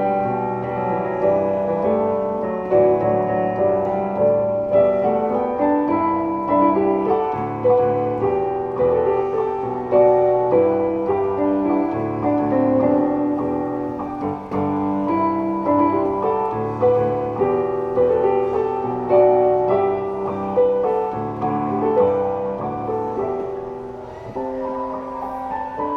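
Piano played four-hands, a flowing melody over chords, growing softer near the end.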